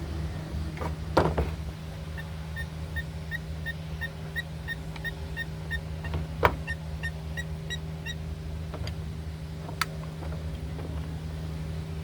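Steady low hum with a few sharp knocks. A run of short, evenly spaced high chirps, about two and a half a second, comes in the middle.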